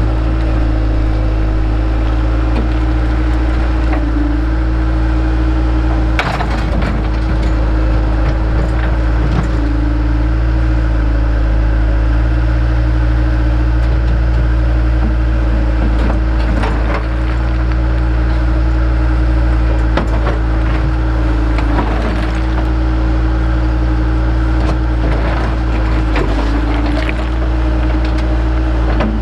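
Heavy digging machinery's engine running steadily at a constant pitch, with occasional sharp knocks and scrapes over it.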